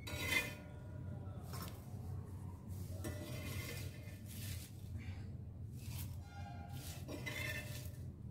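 Roasted red chillies being tipped and scraped into a stainless-steel mixer jar, clinking and rattling against the metal about once a second, over a low steady hum.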